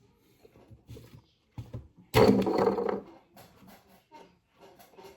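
A person's short wordless vocal sound about two seconds in, lasting about a second, amid scattered light clicks and rustles.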